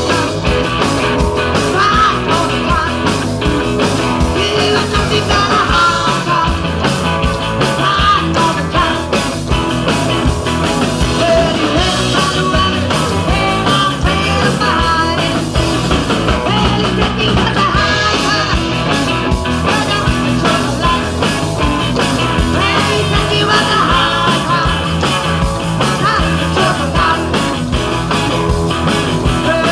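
Live southern country rock band playing at full volume: electric guitars, bass and drums, with a woman singing lead.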